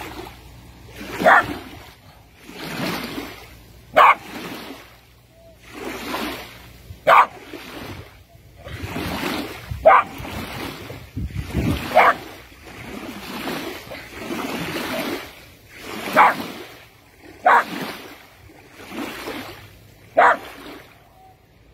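A corded-coat dog swimming, breathing hard in rhythmic noisy puffs, with a short sharp whimpering yelp every two to three seconds.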